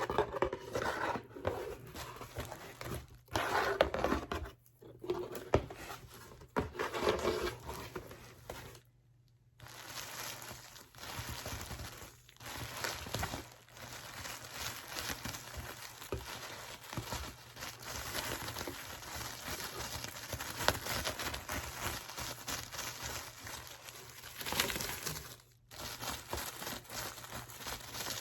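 Parcel packaging being unwrapped by hand: paper and plastic wrapping crinkling and crumpling, with some tearing, as a dense run of small crackles. It pauses briefly about nine seconds in and again a few seconds before the end.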